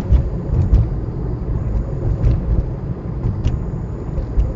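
Car cabin noise while driving: a steady low rumble of engine and tyres on the road, with a few faint ticks.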